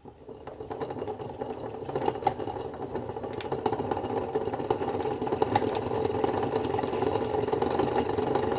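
Hand-cranked Hexagon sewing machine winding a bobbin. The crank gearing and handwheel turn with a dense, even mechanical rattle, picking up speed over the first couple of seconds. The bobbin winder is driven off the handwheel with the stop motion disengaged, so the needle is not running.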